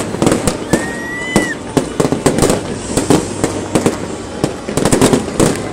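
Aerial fireworks going off in quick succession: many sharp bangs and crackles close together, with a short whistle about a second in.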